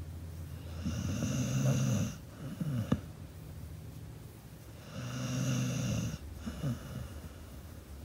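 Pit bull snoring: two long snores about four seconds apart, each followed by a few short breaths, with a sharp click about three seconds in.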